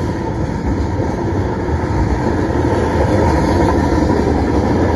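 Freight train cars rolling past close by, a steady rumble of steel wheels on the rails.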